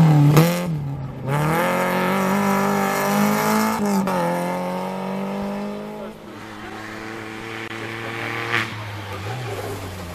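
Small rally hatchback's engine at full throttle, passing close and pulling away through the gears: the pitch climbs, breaks at a gear change about four seconds in, then climbs again and fades with distance.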